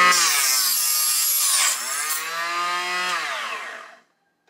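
Small electric mini chop saw cutting through a brass rifle cartridge case. Its motor whine sags in pitch under the cut with a high hiss of blade on metal, picks up speed again, then drops away as the saw is switched off and coasts to a stop about four seconds in.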